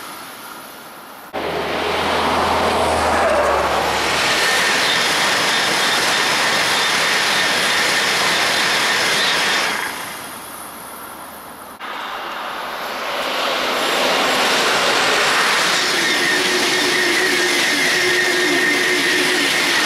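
High-speed trains passing at speed. A loud rush of air and wheel noise starts abruptly about a second in and fades near ten seconds. After a short lull, a second pass starts near twelve seconds and swells as a Eurostar Class 373 trainset goes by, with a steady high whine and a fast rhythmic beat from the wheels near the end.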